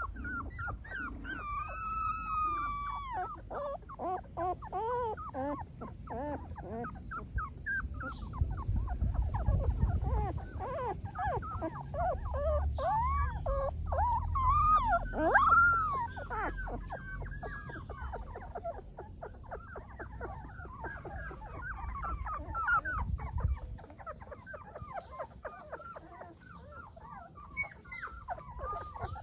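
Several young golden retriever puppies whimpering and squeaking, many short high calls overlapping one another, with a longer drawn-out whine about two seconds in. A low rumble runs underneath through the middle.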